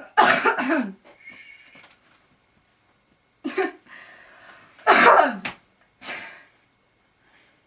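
A person making loud, short wordless cries with falling pitch: a burst at the start, then two more about three and a half and five seconds in, and a smaller one near six seconds.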